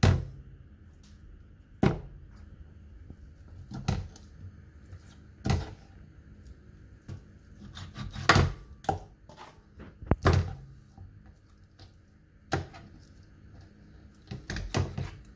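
Chef's knife cutting slits into raw chicken drumsticks on a bamboo cutting board, with about eight sharp knocks of the blade on the wood, roughly two seconds apart, and quieter taps and scrapes between them.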